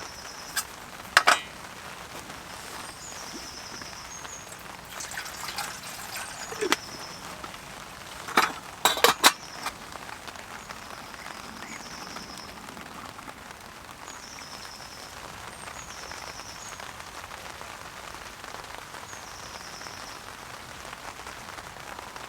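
Steady rain falling on the tent, with a few sharp metal clinks and knocks about a second in and again around nine seconds as the tea-making kit is handled. A faint high chirp repeats every second or two.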